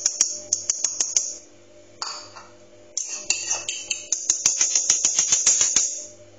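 Metal spoon rapidly tapping and scraping against a small ceramic bowl to knock cornstarch out into a plastic jug of flour. It is a run of quick clinking clicks, about five a second, with a scraping hiss. It comes in two spells: one ends about a second and a half in, the other starts about three seconds in.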